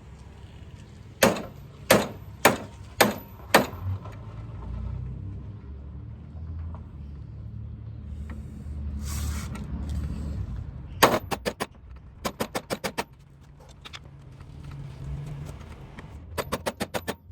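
Hammer striking a steel punch to drive a small pin into a lawn tractor's deck lift button. Five sharp, ringing metal blows about two a second, then after a pause quick runs of rapid lighter taps.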